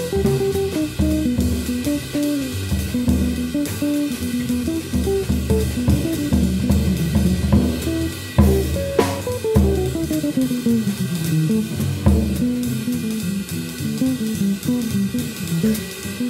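Small jazz group playing: archtop electric guitar lines over walking double bass, with a drum kit played with sticks on snare and cymbals. About nine seconds in, a long run of notes steps steadily downward.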